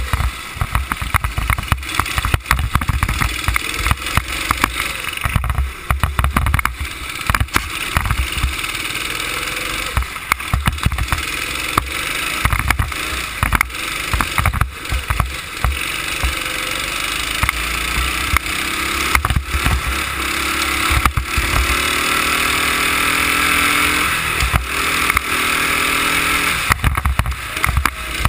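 Go-kart engine running at speed, heard onboard through heavy wind buffeting and bumps on the camera microphone. The engine note climbs steadily in pitch over several seconds in the second half, then drops near the end.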